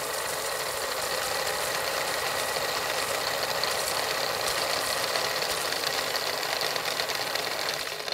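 Film projector sound effect: a steady whirring rattle with hiss, easing off a little near the end.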